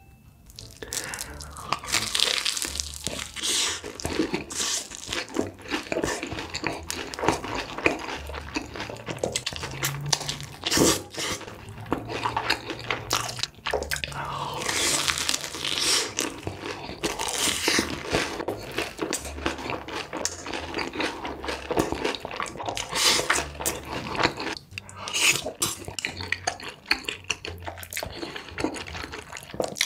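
Close-miked eating: loud crunching bites into a breaded, deep-fried snack coated in cheese sauce, with wet chewing in between.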